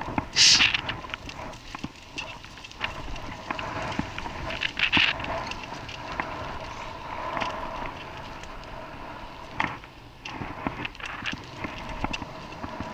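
A vehicle on the move, running with a steady hum under scattered clicks, knocks and rattles. A short, loud hiss comes about half a second in.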